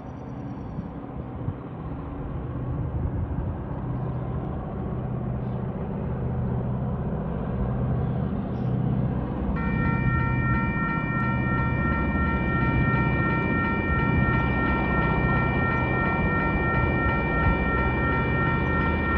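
Diesel engines of TasRail 2050-class locomotives drawing near, a low pulsing hum that grows steadily louder. About ten seconds in, the level-crossing warning bell starts up with a steady high ringing.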